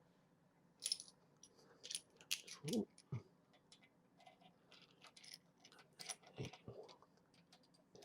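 Faint, scattered metallic clicks and clinks of small steel setup parts being handled and fitted by hand, with a few light knocks.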